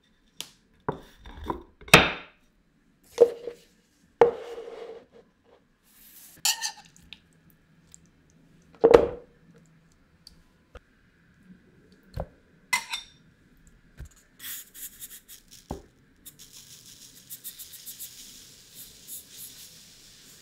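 Scattered knocks and clinks of a kitchen knife, a ceramic plate and a plastic jug as blocks of tofu are moved off the plate into the jug, the loudest about two seconds in. Near the end, a rustling patter of cassonade brown sugar poured from a metal bowl onto the tofu.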